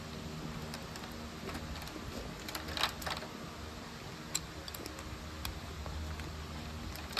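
Clear polycarbonate keycaps clicking as they are handled and pressed onto a mechanical keyboard's switches: scattered sharp plastic clicks, with a quick cluster about three seconds in, over a low steady hum.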